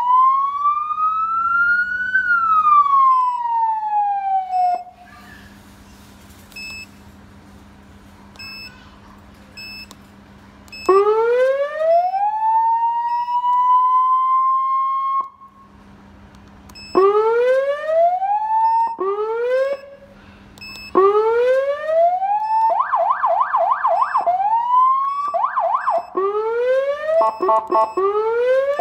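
Black Falcon 100W electronic siren amplifier sounding a series of siren tones: first a slow wail rising and falling, then after a pause of about six seconds a slow rise held steady. After another short pause come runs of short rising whoops and fast up-and-down yelp sweeps; a faint hum fills the pauses.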